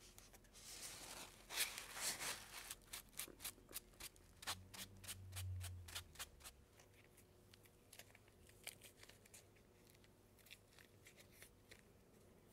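Hands handling fresh shiitake mushrooms and wiping their caps with a cloth: soft rustling, then a quick run of small crisp clicks and taps, with a dull low bump about five seconds in. Fainter, sparser clicks follow near the end.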